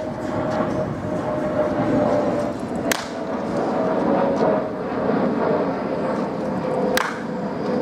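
Wooden baseball bat cracking against pitched balls in batting practice, twice, about four seconds apart. Under the cracks runs a steady loud drone with a slowly falling tone.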